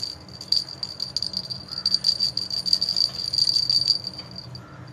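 Bell inside a plastic cat-toy ball jingling and rattling as the ball is shaken in quick bursts, busiest in the middle and thinning out near the end.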